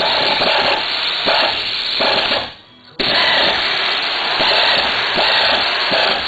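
Music playing from a radio. It drops away briefly about halfway through, then comes back abruptly.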